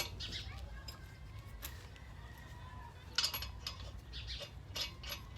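Scattered light metallic clinks and clicks of hand tools and lug nuts being handled at a car wheel, with a faint steady low hum underneath.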